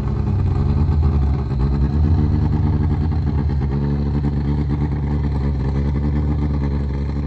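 Peugeot 205 T16 rally car's turbocharged four-cylinder engine running at a steady speed.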